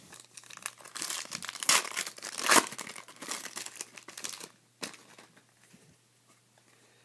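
Plastic trading-card pack wrapper being torn open and crinkled by hand, with the loudest crackles about two and two-and-a-half seconds in, fading out after about four and a half seconds, followed by a single short tick.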